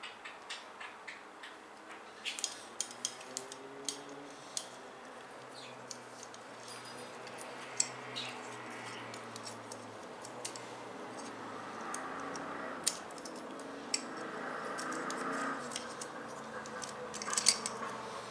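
Small, sharp clicks and taps of computer hardware being handled and fitted, scattered irregularly with a cluster near the start and another near the end.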